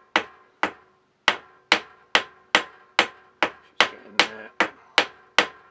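Brass hammer tapping a cast-iron milling-machine vise in a quick, even run of light taps, about a dozen, each with a short metallic ring. The taps nudge the vise round to square it to the table's travel while a dial indicator is watched.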